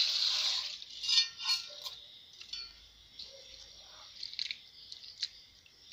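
Dry rice grains poured into a stainless steel bowl with a brief rushing hiss, then rice being swished by hand in water, with small splashes and clinks against the metal bowl.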